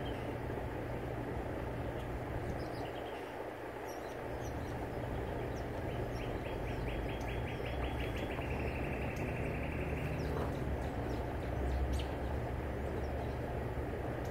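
Wind rumbling on the microphone, with small birds chirping. About six seconds in, a bird sings a quick trill of evenly repeated notes that drops slightly in pitch halfway through and lasts about four seconds.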